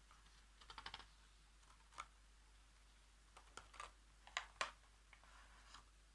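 Faint, sparse clicks and taps of a pen on a colouring book, with a quick run of ticks just under a second in, two sharper clicks past the middle, and a short soft paper scratch near the end.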